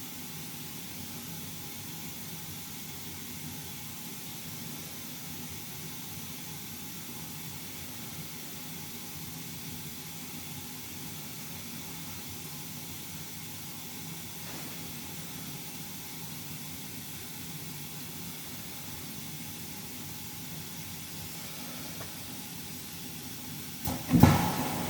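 Steady hiss with a low hum underneath, then a loud sudden knock about a second before the end.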